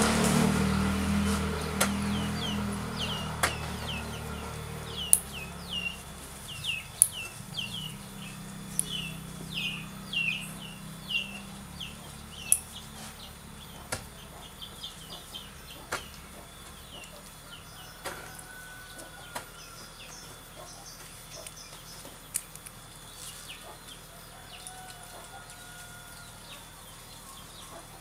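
A hoe chopping into dirt in sharp strikes every second or two, while birds chirp in quick runs of short falling notes. A low rumble fades out over the first few seconds.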